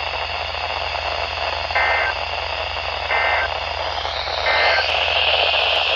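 Weather radio receiver hissing with static, cut by three short two-tone digital data bursts about a second apart: the SAME end-of-message code that closes an emergency alert broadcast. Near the end the static shifts higher in pitch.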